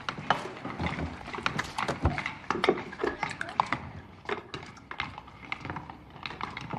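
Many spoons clattering and scraping in bowls, a fast irregular run of clicks and knocks, as a table of boys eat their porridge.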